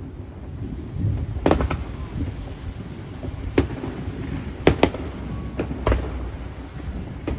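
Fireworks bursting overhead: about six sharp bangs at irregular intervals, two in quick succession near the middle, over a low rumble.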